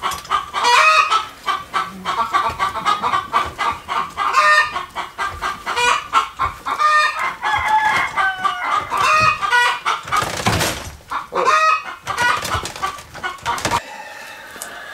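Chickens clucking and squawking close by, a steady stream of short calls with a few louder squawks.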